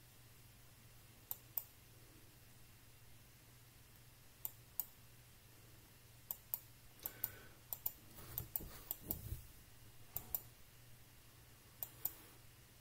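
Sharp clicks of a computer mouse and keyboard, often in quick pairs a few seconds apart, with a flurry of clicks and soft knocks from about seven to nine and a half seconds in. A faint low hum runs beneath them.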